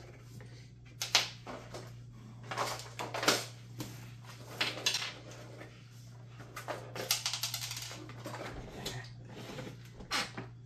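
Irregular clicks, taps and light clatter of cables and plastic and metal parts being handled inside a computer case, over a steady low hum.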